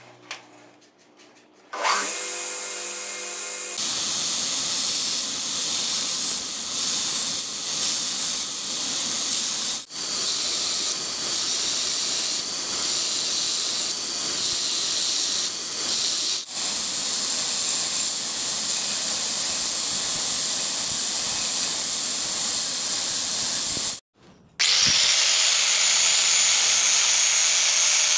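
A belt grinder starts up about two seconds in and then grinds a spring-steel knife blade held against the moving abrasive belt, a loud steady grinding with a few short breaks. Near the end an angle grinder with a sanding disc sands the blade, a steady hissing grind.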